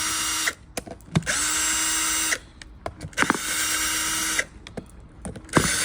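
Power drill-driver backing out screws from an electric scooter's wheel cover, in repeated short runs of about a second each that spin up to a steady whine, with light clicks between runs.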